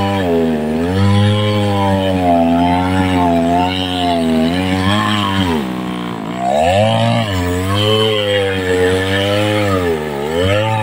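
Chainsaw cutting into a large rain tree (trembesi) trunk. The engine note sags and picks back up every second or two as the chain bogs under load, with a deeper dip about six seconds in.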